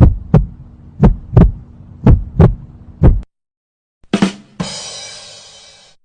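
Heartbeat sound effect: paired lub-dub thumps about once a second, stopping about three seconds in. After a short gap comes a quick hit, then a bright crash that rings and fades over about a second and a half.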